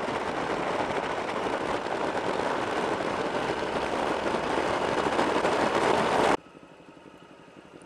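Wind and road noise from a motorcycle riding at road speed, a steady rushing with the engine underneath, heard with wind on the microphone. It cuts off suddenly about six seconds in, leaving a much quieter background.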